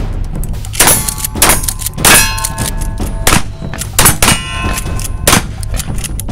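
Pump-action shotguns firing on a line: about half a dozen loud, irregularly spaced shots, several followed by a metallic ringing that lasts up to a second.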